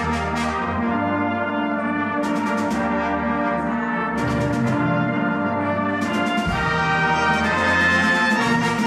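Full brass band playing live: cornets, horns, trombones, euphoniums and tubas holding sustained chords over a low bass line, with percussion hits now and then.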